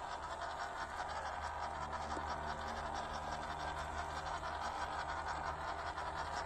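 1/16-scale WPL C24 RC crawler's small electric motor and gearbox whirring steadily as it crawls over rock and gravel. A faint whine joins about a second and a half in.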